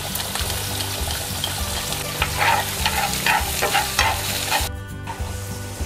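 Chopped onion and sliced shallots sizzling in hot oil in a frying pan as they are stirred, the utensil scraping and tapping against the pan several times in the middle. The sizzle cuts out for a moment near the end.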